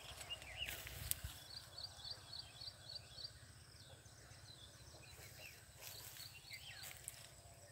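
Faint outdoor ambience with small birds calling: a run of short, high chirps repeated about three or four times a second, and a few other thin calls. A couple of sharp clicks in the first second or so.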